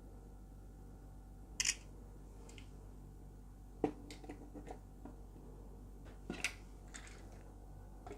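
Vivo Y91 smartphone playing its camera shutter sound as photos are taken, a short double click about a second and a half in and again about six seconds in, with small clicks of the phone being handled in between.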